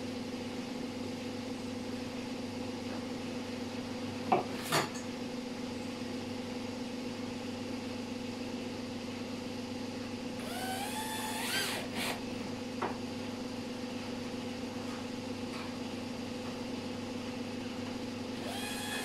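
Cordless drill briefly whirring for about a second just past the middle, its pitch rising as it drives a screw through a metal drawer slide into the cabinet side. A steady low hum runs underneath, and there are two sharp clicks about four seconds in.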